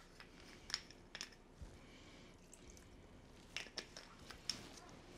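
A few faint clicks and small handling noises from a soy sauce bottle being handled and opened.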